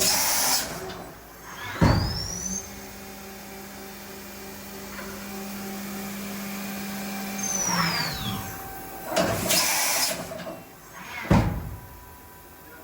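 Mori Seiki NH-5000DCG horizontal machining center working through an automatic tool change cycle. It makes short hissing blasts, two sharp clunks, and a whine that rises, holds steady for about five seconds, then winds down.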